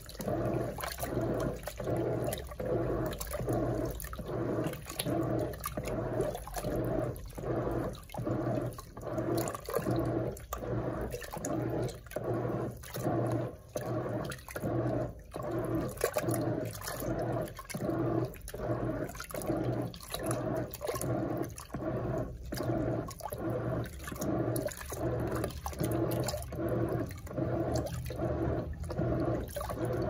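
Brastemp Eggo 1 kg mini washing machine agitating its load in water during the fabric-softener rinse. The water sloshes in an even rhythm, a little over one swish a second, over a steady motor hum.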